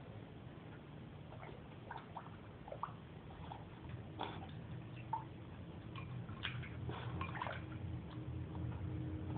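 Beagle-mix puppy with her muzzle in a water bowl, blowing bubbles and splashing: irregular small splashes and bubbling, busier and louder from about halfway, over a low steady hum.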